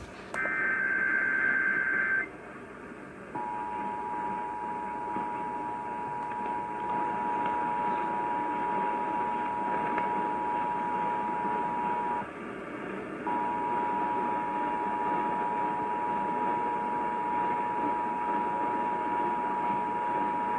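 Emergency Alert System test: a SAME digital header burst, a brief warbling data tone, ends about two seconds in. After a short pause the steady two-tone EAS attention signal sounds; it drops out for about a second near the middle, then resumes, over a constant radio hiss.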